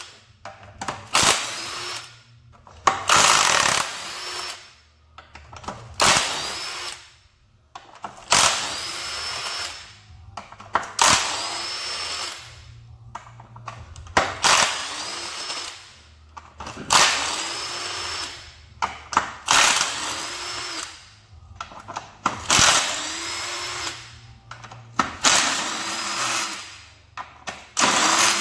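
A power tool in about a dozen short runs of roughly a second each, spinning out transmission case bolts. Each run speeds up and then winds down.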